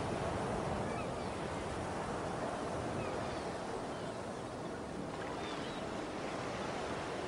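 Ocean surf ambience: a steady, even wash of waves, with a few faint short high chirps over it.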